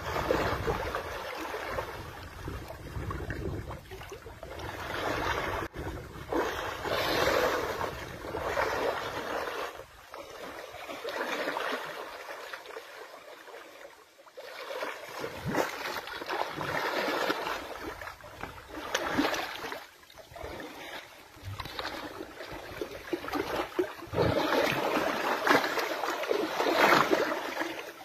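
Muddy river water splashing and sloshing as an elephant calf rolls and kicks in the shallows, coming in irregular surges with a calmer stretch about midway.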